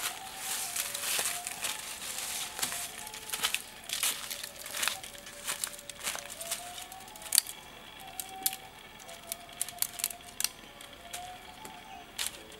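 Dry leaf litter crackling and rustling, with small sharp clicks and twig snaps as someone steps and works in it. A faint background music melody runs underneath.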